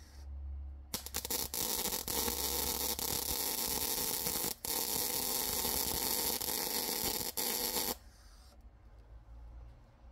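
Electric arc welding on the steel actuator shaft: a loud crackling hiss in two runs with a brief break about halfway, stopping suddenly about eight seconds in, over a steady low electrical hum.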